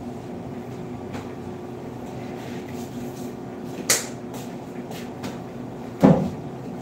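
Steady hum in a small room, with a sharp click about four seconds in and a louder knock about six seconds in.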